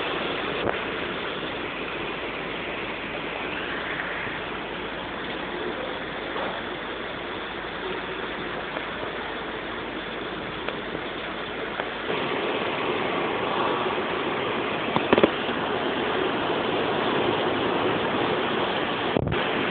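Storm wind and heavy rain of a hurricane lashing trees: a steady rushing noise that grows a little louder about twelve seconds in, with a couple of sharp knocks a few seconds later.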